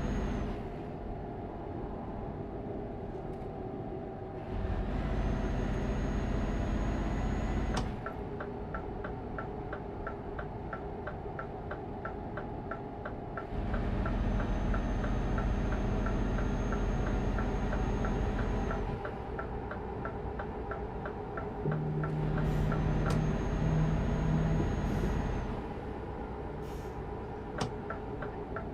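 Motor vehicle driving, its engine rumble swelling in three long stretches as it pulls away and dropping back between them. Between these stretches a turn-signal indicator ticks evenly, twice, in long runs.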